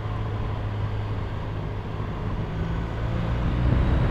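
BMW R1200RT's flat-twin boxer engine running steadily as the motorcycle is ridden, getting louder near the end.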